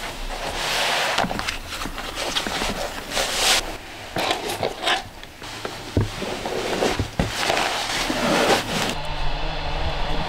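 Rustling and scraping of cloth and rubber work gloves being handled and pulled on, then rubber boots being pulled on, in a string of short irregular handling noises.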